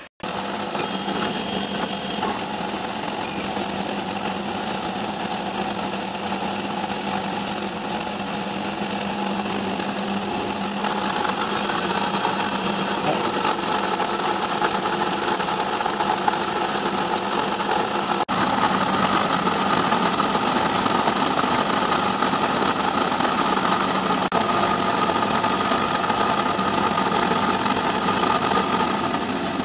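CNC milling machine's end mill cutting a pocket in a metal plate: the spindle motor and the cutting run steadily with a held hum and whine. The pitch of the cutting shifts a little about 11 seconds in and again after a brief break about 18 seconds in.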